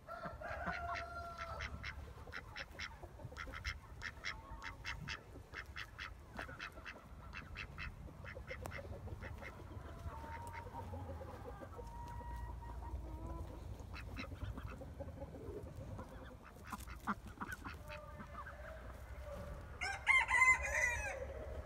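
Backyard chickens and ducks calling: short pitched calls near the start and again about halfway, over a quick run of light clicks in the first half, then a loud chicken call about twenty seconds in, the loudest sound here.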